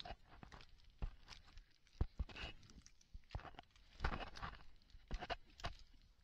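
Footsteps picking their way over wet, rocky mudflat: uneven steps and scuffs at irregular intervals.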